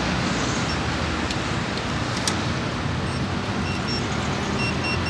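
Steady street traffic noise. About three and a half seconds in, a handful of short, high electronic beeps begin: keypresses on a handheld card payment terminal.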